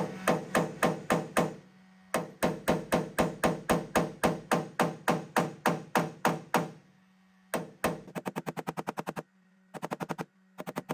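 Rapid rhythmic tapping on the car's steel body panel, about four sharp taps a second in runs with short pauses, speeding up to about seven a second near the end: the metal being tapped during paintless dent repair. A steady low hum from the heat gun runs underneath.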